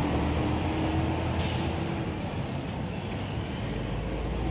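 Steady low rumble of a heavy diesel engine with a steady drone that fades out about two seconds in, and a short hiss of released air, like an air brake, about a second and a half in.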